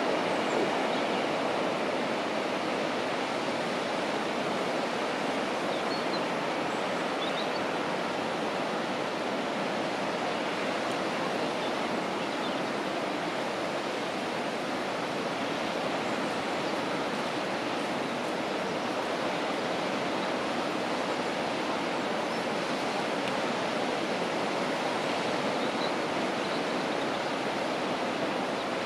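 Steady, even hiss of sea waves washing on the beach.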